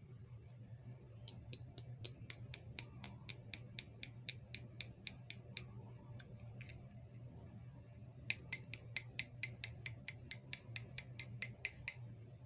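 Small, sharp clicks in a rapid even series, about four or five a second, in two runs of several seconds each; the second run starts about eight seconds in.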